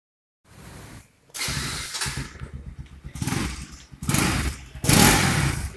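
A 2017 Bajaj Pulsar NS200's single-cylinder engine comes in about half a second in and is revved in a series of throttle blips, the last near the end the loudest.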